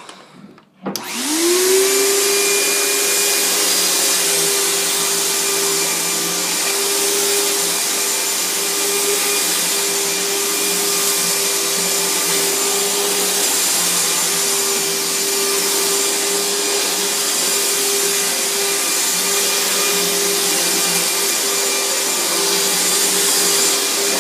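Riccar 100 bagged vacuum cleaner switched on about a second in, its motor whine rising quickly to speed, then running steadily.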